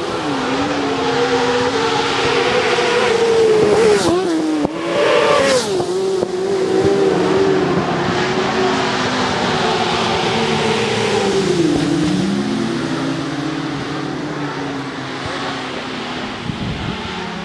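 Several racing motorcycle engines revving up and down through the gears, their pitches rising and falling over one another, loudest about four to six seconds in.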